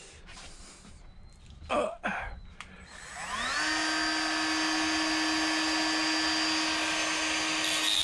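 A hand-held power drill spins up about three seconds in, its whine rising to a steady pitch, and keeps running at full speed; near the end a higher hissing grind joins it. Before it, a few faint knocks and rustles of handling.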